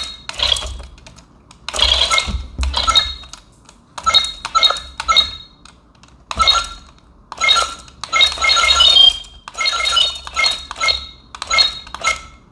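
Remote-control toy robot driven in short stop-start bursts, about a dozen in all: its drive motors buzz each time it moves, and its hard plastic parts clatter and clink on the surface.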